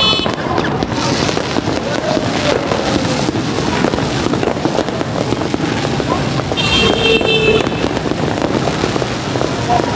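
New Year fireworks crackling and popping densely and without pause. A horn blares briefly about seven seconds in.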